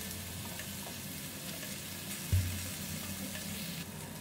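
Basa fish fillets sizzling steadily in a grill pan with olive oil and butter, with one low thump about two seconds in.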